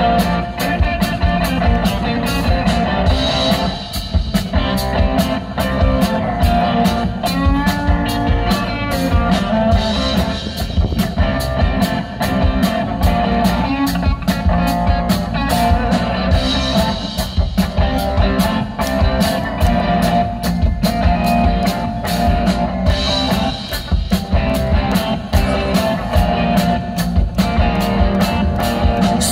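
Live rock band playing an instrumental passage: two electric guitars, electric bass and a drum kit keeping a steady beat.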